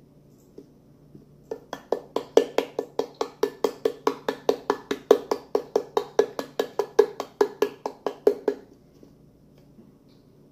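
A utensil clinking against a bowl in quick, even strokes, about five a second for some seven seconds, as slime is stirred.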